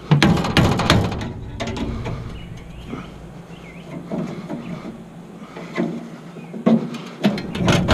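Metal knocks and clanking as a fan motor is knocked and worked loose from an old Bard package heat pump's housing, densest in the first second and again near the end.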